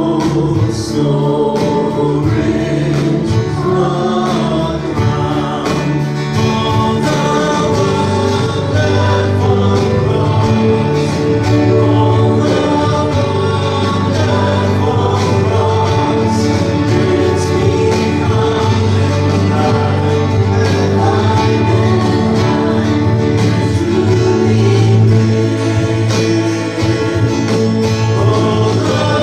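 Live worship band playing a song, with guitars and several voices singing together over a steady bass.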